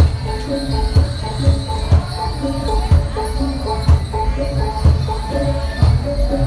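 Loud music with a steady beat: a heavy low drum hit about once a second under a repeating melody.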